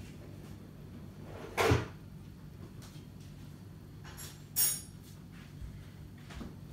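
Two short knocks of handling on a workbench, about three seconds apart, the second with a bright metallic clink, over a faint steady low hum.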